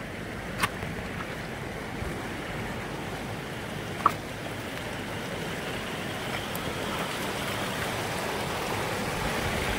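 Steady rushing of a shallow, stony river flowing nearby, slowly swelling a little, with a couple of short clicks, the sharpest about four seconds in.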